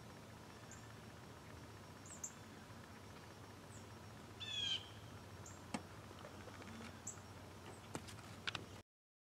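Faint woodland bird calls: short high chirps every second or two, and one louder harsh call about four and a half seconds in. A few faint clicks, and the sound cuts to silence near the end.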